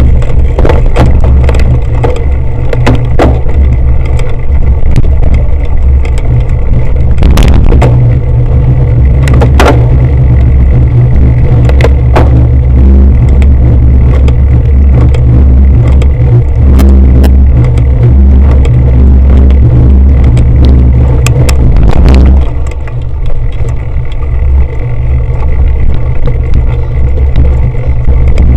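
Wind rumble buffeting the microphone of an action camera carried on a cyclocross bike riding over rough grass and dirt, with frequent rattles and knocks from the bike and camera mount over the bumps. The rumble eases slightly about three-quarters of the way through.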